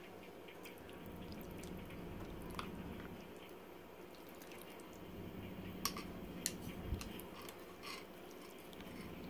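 Chopsticks and a metal spoon working noodles in a bowl of broth: faint wet sloshing and dripping, with a few light clicks against the bowl about six seconds in.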